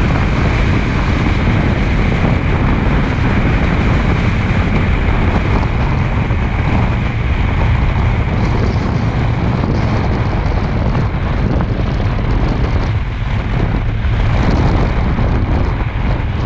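Loud, steady wind rush buffeting the microphone of a camera mounted on the bonnet of a vehicle driving over desert sand tracks, with the vehicle's engine and tyre noise underneath.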